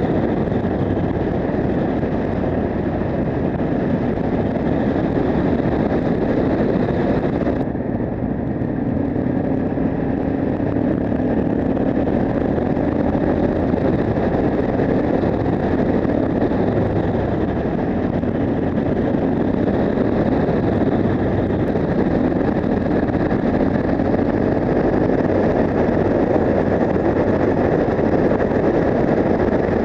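Yamaha TW 125's single-cylinder four-stroke engine running steadily at road speed through an aftermarket Akrapovič exhaust, with wind noise on the microphone. The sound briefly dulls about eight seconds in.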